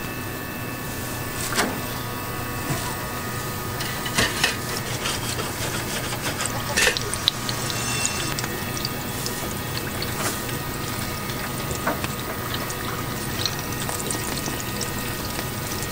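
Kitchen noise at a street-food stall: a steady watery hiss of running or pouring liquid, with scattered sharp clicks and knocks of utensils.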